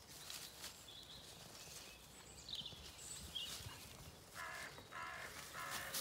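Faint songbird chirps, then from about four seconds in a crow cawing three times in quick succession, about one harsh caw every half second.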